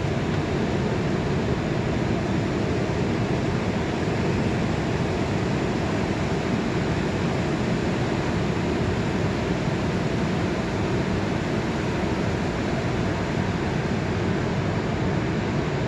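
Pacific Ocean surf: a steady, even roar of many breaking waves rolling in, with no single crash standing out.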